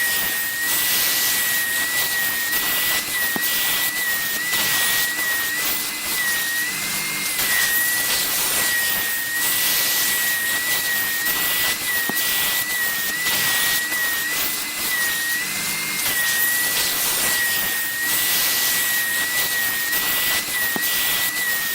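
VEVOR wet/dry vacuum running steadily: a high motor whine over the rush of air through the nozzle, its pitch wavering slightly now and then.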